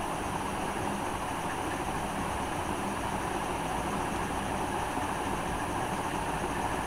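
Steady background noise: an even hiss and low rumble that does not change, with no distinct clicks or knocks.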